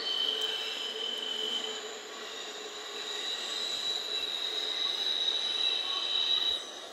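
Autorack freight train's wheels squealing on a curve over the steady rumble of the cars, played back through a laptop's small speakers with no deep bass. The high steady squeal shifts to a higher pitch about two seconds in and cuts off sharply near the end.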